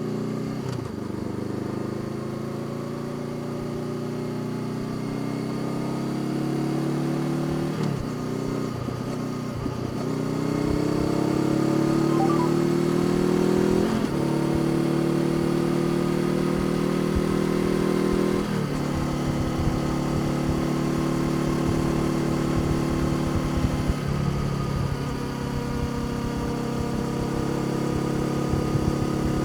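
Honda CBR500R's parallel-twin engine under way, its note rising as it pulls and then dropping sharply at each of several upshifts, settling into a steadier drone in the second half.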